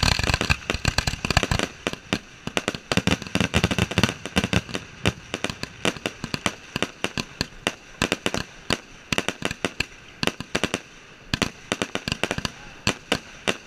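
Fireworks launching from the ground at close range: a rapid run of sharp bangs and pops, several a second, thickest in the first two seconds and continuing unevenly after.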